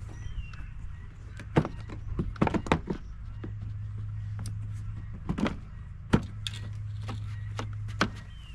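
Plastic housing panels of an inverter generator being handled and knocked into place, a series of sharp clicks and knocks, over a steady low hum that grows louder about three seconds in.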